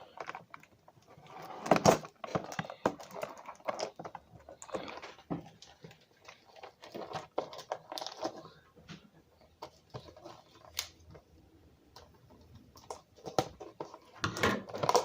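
Plastic wrapping on a trading-card box being picked at, punctured and torn open by hand: irregular crinkles, taps and scrapes, louder around two seconds in and again near the end.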